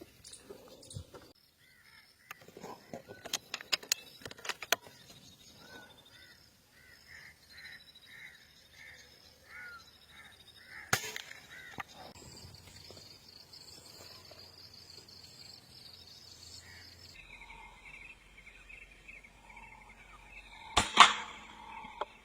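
Birds calling repeatedly, broken by sharp cracks from an air rifle firing: one about halfway through and a louder one near the end. Several lighter clicks come a few seconds in.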